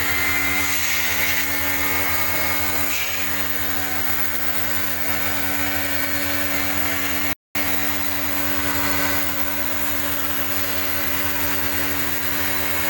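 Electric pressure washer pump motor running steadily with the hiss of its water jet spraying aircon coil fins; the sound drops out for a split second about seven seconds in.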